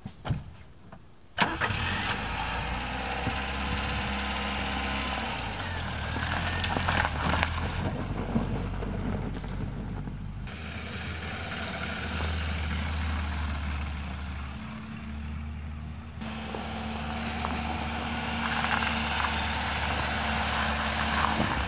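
Ford Fiesta's engine starting about a second in, then running as the car is driven: the engine note shifts up and down at first, then runs steadier.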